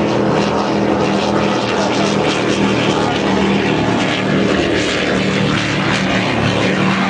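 Offshore racing powerboat's engines running at full speed in a steady low drone, with the hiss of spray and water.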